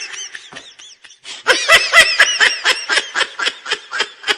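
High-pitched laughter in rapid ha-ha pulses, about five a second, used as a laugh sound effect after a joke's punchline. One laugh tails off at the start, and a second, louder laugh begins about a second and a half in.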